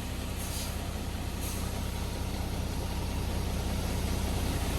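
Diesel engine of a ready-mix concrete truck running steadily as the truck rolls forward to pour, growing slowly louder.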